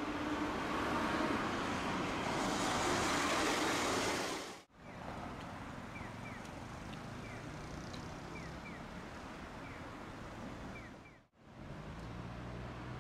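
Tosaden streetcar running on its track, heard from inside the car: a loud rumble for about four and a half seconds, then the sound cuts out abruptly and returns quieter with faint short high chirps. It cuts out again briefly near the end and comes back with a low steady hum.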